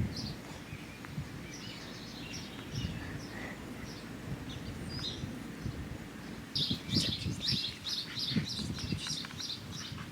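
Birds chirping, scattered short high calls at first, then a quick run of about four or five chirps a second in the second half, over low rustling and bumps.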